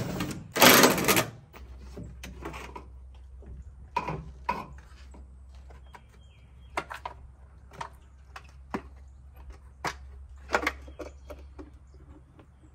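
Cordless drill running in two short bursts to back out the taillight screws, then scattered plastic clicks and knocks as the taillight housing is worked loose from the truck bed.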